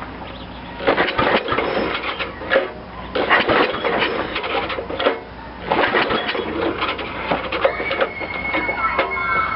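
8 hp Briggs & Stratton mower engine cranked on its recoil starter in several pulls, each a couple of seconds of rapid clattering as it turns over without catching. A thin steady tone comes in near the end.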